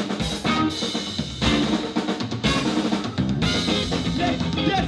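Live drum kit playing a loud break, snare and bass drum hits roughly once a second, with the band's music running underneath.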